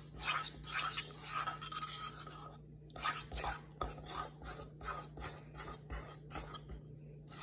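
A spoon stirring a chocolate and peanut butter mixture in a ceramic bowl, scraping the bowl in quick repeated strokes, two or three a second, with a short pause about two and a half seconds in.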